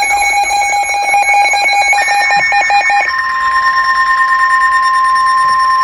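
Emergency Alert System alert tones: a rapidly pulsing electronic beeping for about three seconds, then a steady, continuous electronic alarm tone.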